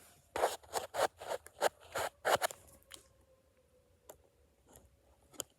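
A quick run of about eight short rustling noises close to the microphone, then three sharp isolated clicks.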